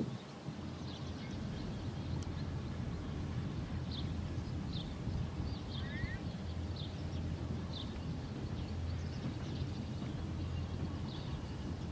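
Outdoor ambience: a steady low rumble with faint, short, high chirps about once a second.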